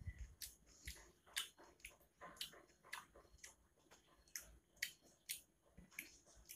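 Quiet eating sounds: a person chewing a mouthful, with short, sharp, wet mouth clicks and smacks about twice a second.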